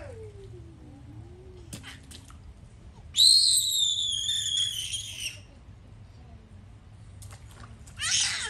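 A toddler's high-pitched squeal, held for about two seconds. A short burst of noise follows near the end.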